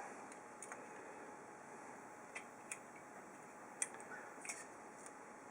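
Faint, scattered clicks and rustles of hands working black electrical tape onto a metal bolt: about five small ticks, the sharpest about four seconds in, over a quiet steady hiss.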